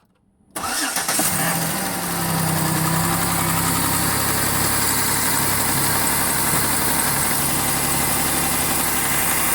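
2008 Chevy Uplander's V6 engine starting about half a second in, then idling steadily with the knock and clunk that the owner is trying to place: a bearing, a rod or the timing belt.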